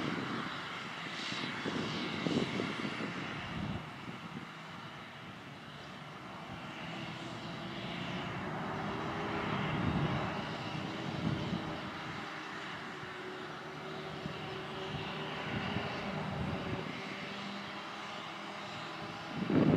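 Claas Jaguar 870 forage harvester running under load as it chops grass and blows it into a trailer running alongside, with the tractor engines mixed in: a steady mechanical drone that swells about halfway through as the machines come closer.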